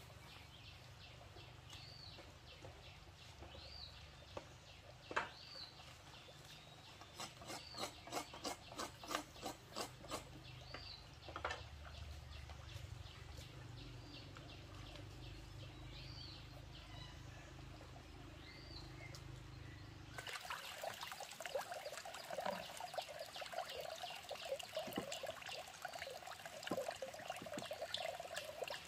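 A bird gives a short, upturned call every couple of seconds over a low hum, with a quick run of about a dozen light knocks partway through. About two-thirds of the way in this gives way to the steady rush of a running stream, with small clicks.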